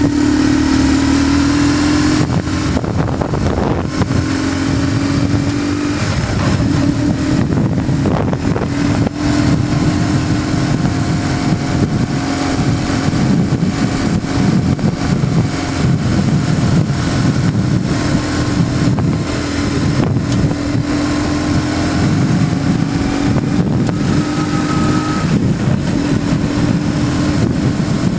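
BMW GS motorcycle engine running at a steady road pace, its note holding fairly level, under heavy wind rush on the microphone.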